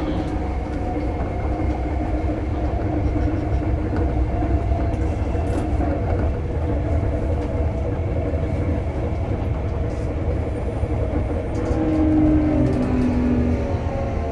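Sotetsu 8000 series electric train running, heard from inside the car: a steady rumble of wheels on rail. About twelve seconds in, the traction motor and inverter whine comes up as gliding tones of changing pitch.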